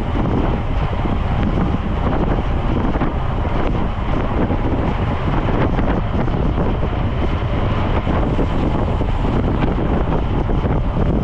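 Steady, loud wind rush over the microphone of a road cyclist riding at speed.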